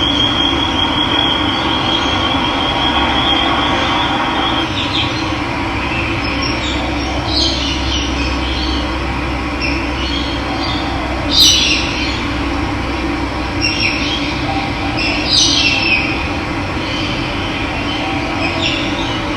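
Steady rushing of running water. A high, wavering tone rides over it for the first few seconds, and short bird calls break in a few times, loudest about eleven seconds in.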